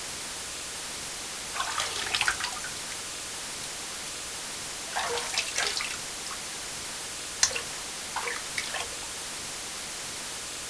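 Water dripping in a bathroom: small clusters of drops and little plops every couple of seconds over a steady hiss.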